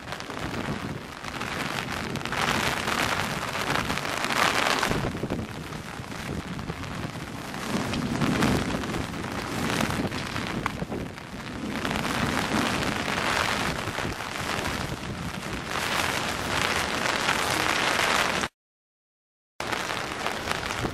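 Heavy rain falling on an umbrella overhead, with gusts of wind buffeting the microphone so the noise swells and eases in waves every few seconds. The sound cuts out completely for about a second near the end.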